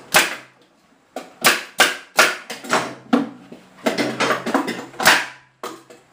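Wooden bee-box parts being knocked together during assembly: about nine sharp, irregular wooden knocks with a short ring after each, and a faint low hum at times.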